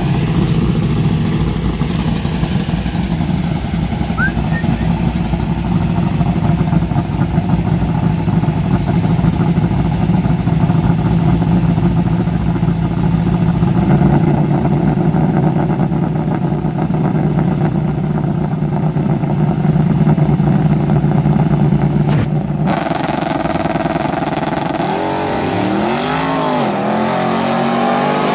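A drag car's engine runs steadily at the starting line, then launches about 22 seconds in. After the launch, the engine note rises and falls a few times as the car pulls away down the strip.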